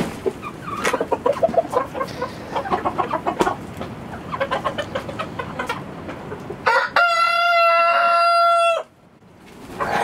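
A flock of chickens clucking and chattering while feeding. Near the end a rooster crows once, a loud, steady call about two seconds long that cuts off sharply.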